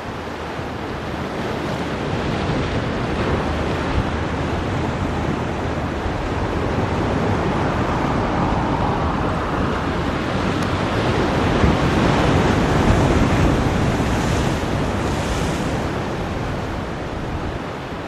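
Boeing 777-300 airliner on landing approach: the steady rushing noise of its twin jet engines swells as it draws closer, is loudest about two-thirds of the way through, then eases off as it nears the runway.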